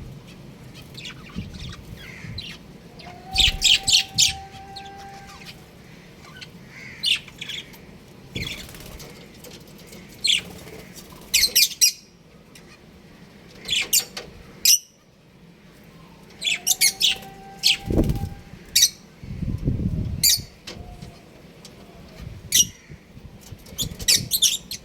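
Budgies chirping in clusters of short, sharp, high calls, scattered and irregular, with a few bursts of wing flapping past the middle.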